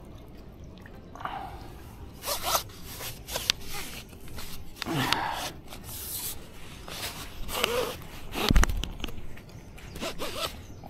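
Handing M1 500 spinning reel's drag buzzing in short, irregular bursts as a heavy hooked fish takes line. A single heavy knock sounds about three-quarters of the way through.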